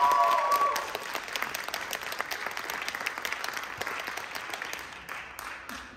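Audience applauding, with a few cheering voices in the first second; the clapping thins out and dies away near the end.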